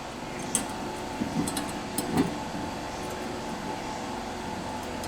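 A few faint clicks of a small nut being fastened by hand onto a screw, over a steady background hum.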